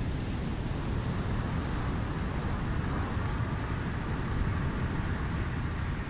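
Sea surf breaking and washing among rocky boulders, a steady rushing noise with a heavy low rumble that swells slightly about a second or two in.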